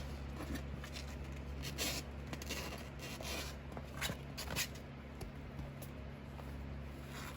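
Four-week-old Maine Coon kittens scuffling and scratching as they play-fight, a scattering of short scratchy rustles and light ticks over a steady low hum.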